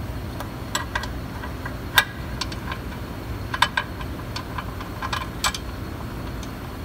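Irregular sharp metallic clicks and taps of bolts and hand tools against the transmission housing as bolts are started by hand, over a low steady hum.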